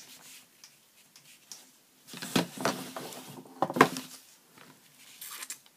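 Paper and card stock being handled and slid on a tabletop: two short bursts of rustling and light knocks, about two seconds in and again near four seconds.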